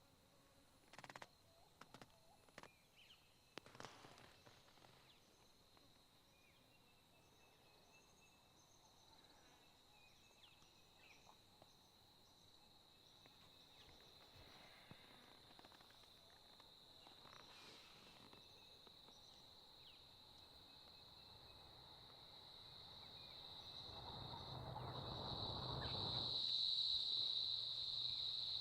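Insects chirring in a steady high note, faint at first and growing louder in the last few seconds. A few soft clicks come in the first few seconds.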